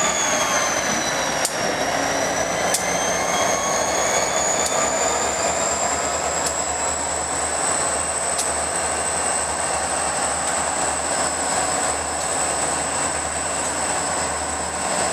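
EMD SD40-2 diesel-electric locomotives passing slowly at close range, their 16-cylinder two-stroke engines running with a steady high-pitched whine that dips in pitch about a second and a half in and then rises again. A faint click from the rail joints comes about every two seconds.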